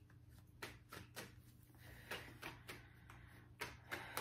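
A deck of tarot cards being shuffled in the hands: faint, irregular soft ticks of cards slipping against each other, about a dozen over a few seconds.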